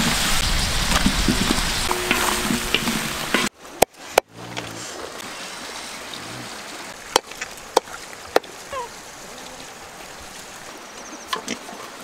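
Pork frying in a wok, a loud dense sizzle, for about the first three and a half seconds; it cuts off suddenly. A much quieter outdoor background follows, with a few scattered sharp clicks and one short chirp.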